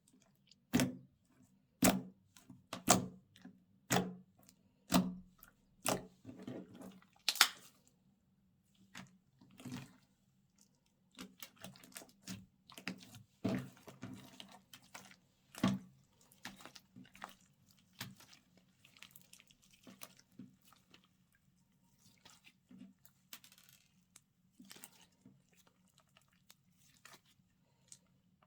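Slime being pressed and worked by hand: about one sharp wet pop or crackle a second for the first seven seconds or so, then softer, irregular squishing and crackling. A faint steady low hum runs underneath.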